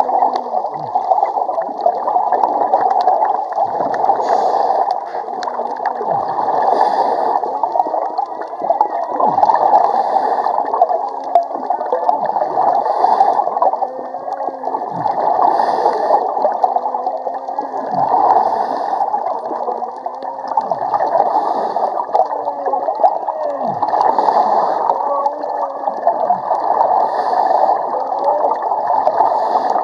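Underwater sound of a scuba diver breathing through a regulator: exhaled bubbles gurgle in a regular rhythm, about one breath every three seconds.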